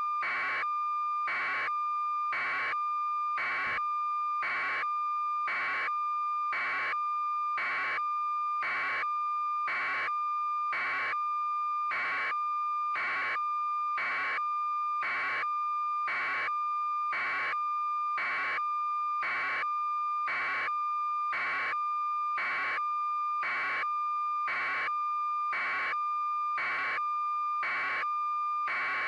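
Steady high electronic tone with a beep pulsing over it about once a second, unchanging throughout.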